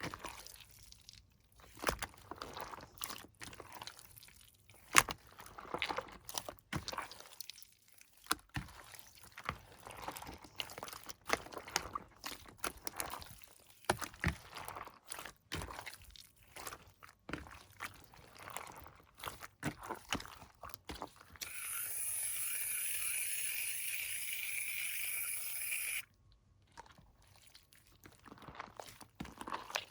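Hands kneading and squishing crunchy slime, giving irregular crackles, pops and squelches. About two-thirds of the way in, a steady hissing rush lasts about four seconds and cuts off abruptly.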